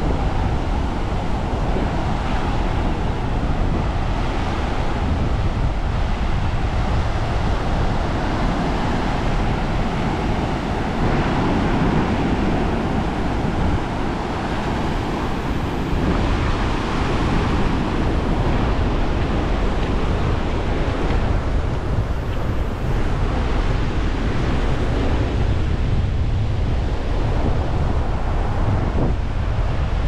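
Wind buffeting the microphone over the steady wash of sea surf.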